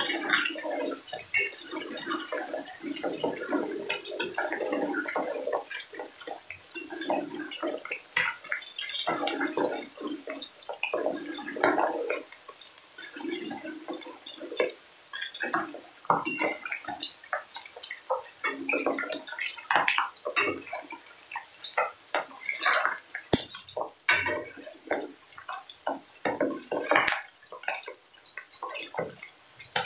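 Pork belly frying in hot oil in a pan, sizzling with irregular crackles and sharp pops of spattering fat as the fat renders out and the meat browns.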